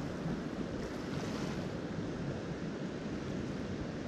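Steady rush of a fast-flowing river, with wind rumbling on the microphone.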